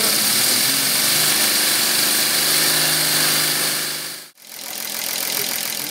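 Prototype six-cylinder radial compressed-air motor running on an air line: a loud, steady hiss of air with a steady hum beneath it. It cuts off suddenly about four seconds in, and a quieter steady running sound follows.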